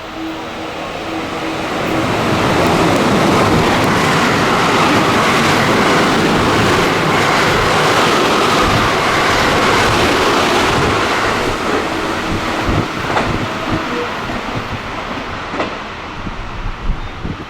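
An electric train passing through a station at speed without stopping: a rushing of wheels on rail that builds quickly, stays loud and steady for about ten seconds, then fades with a few rail clicks.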